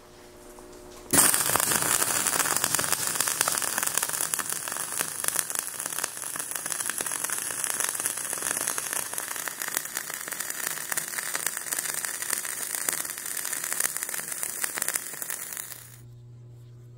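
Gas-shielded flux-core (dual shield) arc welding with 0.045 in wire under 100% CO2 shielding gas: the arc strikes about a second in and runs as a steady, dense crackle for about fifteen seconds while a horizontal fillet weld is laid, then stops suddenly.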